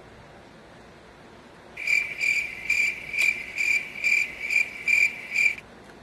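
A chirping insect calling: about nine high, pitched chirps in an even series, a little over two a second, starting about two seconds in and stopping abruptly near the end.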